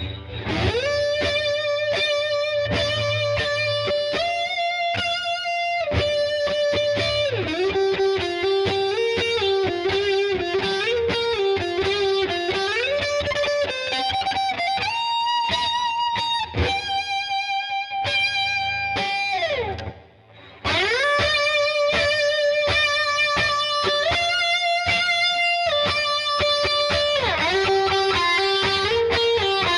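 PRS SE Custom 22 electric guitar playing a melodic lead line of held notes, some with vibrato and some bent or slid between pitches. It briefly stops about twenty seconds in, then picks up again.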